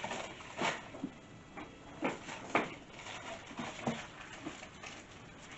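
A few short taps and soft rustles of hands pressing and rolling play-dough on a cloth-covered table.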